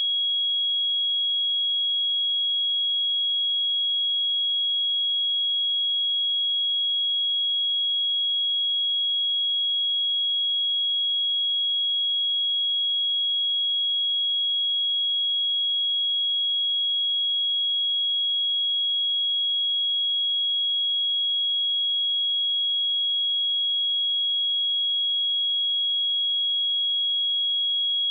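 Electronically generated pure sine-wave test tone at 3315 Hz: a single steady, high-pitched tone held at constant level.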